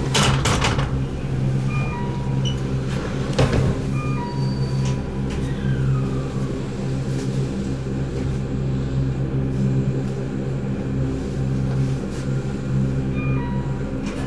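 Electric train standing at a terminal platform, its onboard equipment giving a steady low hum. Short electronic chime tones repeat every couple of seconds, and there are two brief knocks, one at the very start and one about three and a half seconds in.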